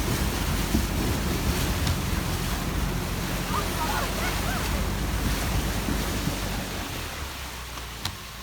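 Wind buffeting the microphone: a steady rough rumble that eases off near the end, with a few faint short chirps partway through.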